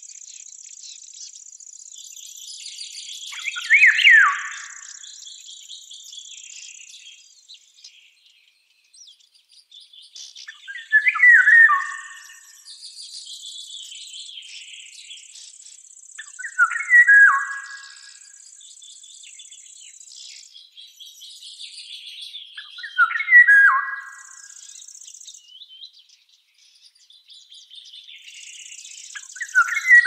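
Songbird singing a short phrase of sliding whistled notes, repeated about every six seconds, with softer chirps between and a faint high hiss in the background that stops and starts.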